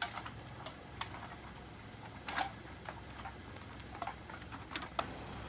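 Irregular light clinks and clicks of empty cans and bottles knocking together in a clear plastic bag as it is carried, with a few sharper knocks about two seconds in and near the end, over a faint steady low hum.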